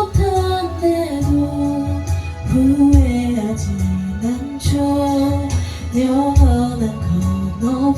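A woman singing a melody with long held notes over a karaoke backing track.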